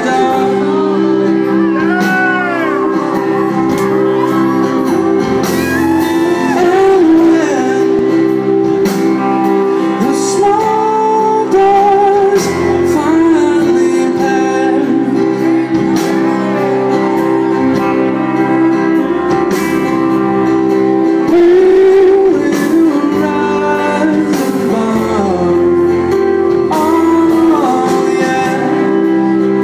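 Live band performance heard from the audience: a man singing over acoustic guitar, electric guitars and drums, with the reverberation of a large hall.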